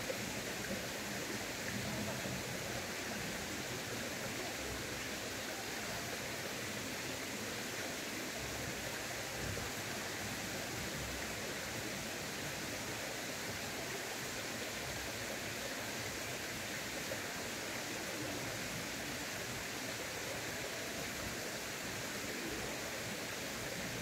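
Mountain stream water rushing steadily, an even wash of noise with no breaks.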